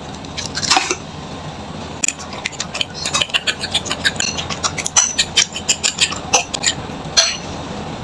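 A kitchen utensil clicking and clinking against a bowl in quick, irregular strokes, as in stirring or beating an egg mixture. There is a short burst of clicks about a second in, then a dense run from about two seconds in that stops a second before the end.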